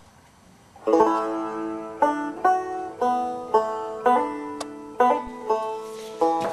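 Background music: a plucked-string tune that starts about a second in, single notes picked about twice a second, each ringing and fading.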